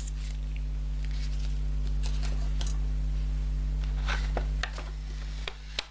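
White paper carrier bag rustling and crinkling as it is handled, a few short crackles spread through, over a steady low hum.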